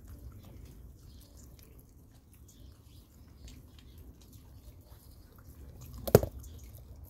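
A baboon handling a whole pumpkin on a stone ledge: faint scrapes and taps, then one sharp thud about six seconds in as the pumpkin is bashed against the rock.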